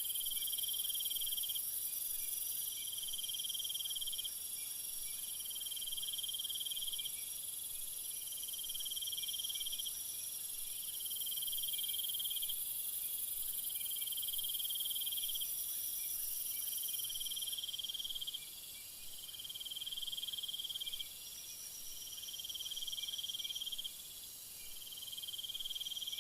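Crickets chirping: a high trill in regular spells of about a second and a half, repeating roughly every three seconds, over a steady high hiss.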